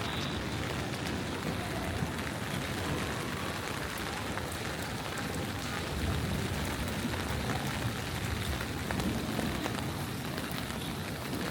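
Steady rain falling on the street, with scattered drops ticking.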